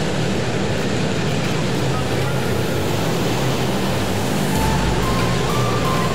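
Several small pit bike engines running together as the bikes lap a course, a steady mixed engine drone.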